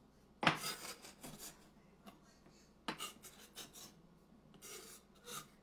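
Chopped olives being scraped across a cutting board into a small glass prep bowl: sharp knocks about half a second in and near three seconds, each followed by brief scraping, with lighter scrapes near the end.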